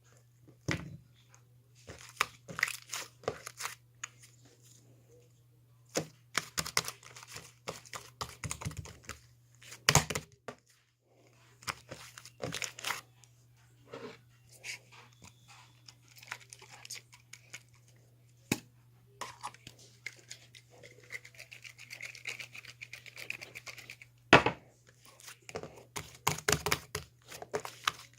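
Irregular bursts of crinkling and tearing from craft materials being handled, over a steady low hum.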